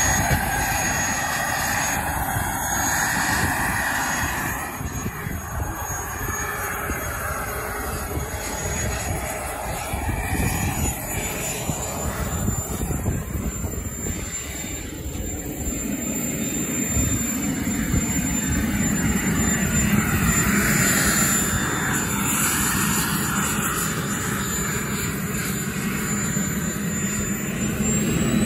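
Model jet turbine engine of a 1/5-scale F-16 running at low power, a steady rushing roar with a high thin whine over it. The whine rises in pitch near the end as the turbine begins to spool up.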